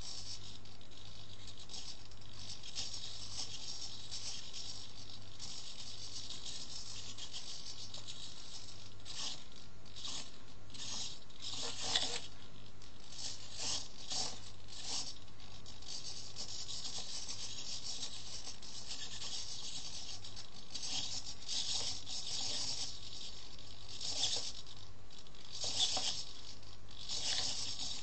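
Small hobby servos of an Arduino Nano stabilising mount whirring in short bursts as they follow the tilting of an ADXL345 accelerometer, over a steady low hum. The servos still jitter, which the builder has yet to damp out. The bursts come mostly around the middle and again several times near the end.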